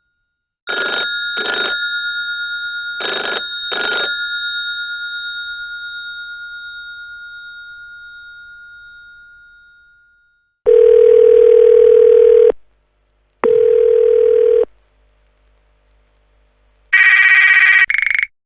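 A succession of telephone sound effects. First a bell is struck in two quick pairs, ding-ding, ding-ding, and its tone rings on and slowly fades. Then come two long steady buzzes, the first about two seconds long and the second about one, and near the end an electronic warbling phone ring begins.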